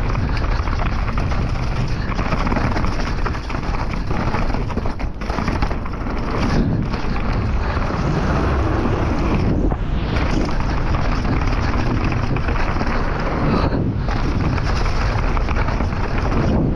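Wind buffeting the microphone and tyres rolling over a dirt trail on a fast descent on a chainless downhill mountain bike: a steady loud rush with a few brief dips.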